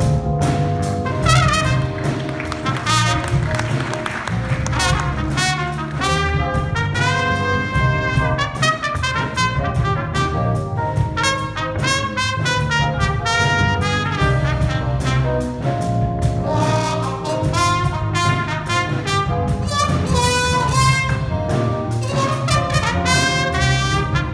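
Live small jazz combo, with a trumpet playing fast lead lines over keyboard, bass and drums.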